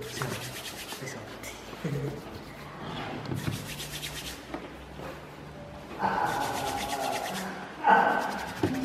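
Palms rubbing and rolling a small ball of floured doulpiti (coconut pudding) dough, a soft rapid rubbing that comes in several short spells.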